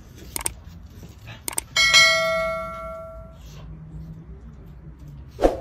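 A few light clicks, then a single bright bell ding about two seconds in that rings on and fades over about a second and a half: the sound effect of a subscribe-and-notification-bell overlay.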